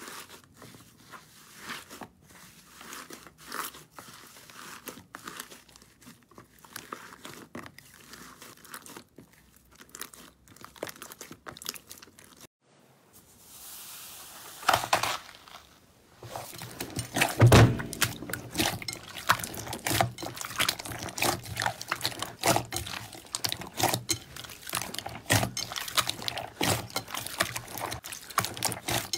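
Hands kneading and squeezing slime, giving a stream of small crackles, clicks and squelching pops. About halfway through there is a brief hiss, then the pops and crackles come louder and denser.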